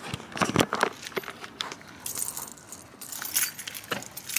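A bunch of keys jangling and clinking in a hand as it moves, in irregular clicks and short jingles.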